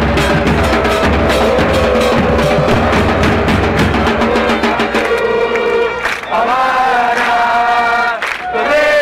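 A football supporters' section chanting in unison to large bass drums. About five seconds in the drums stop and the chant carries on with voices alone.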